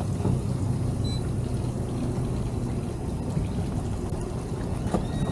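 Outboard motor running at low speed, its propeller churning the water behind the boat into a splashing wash; the low hum eases about halfway through.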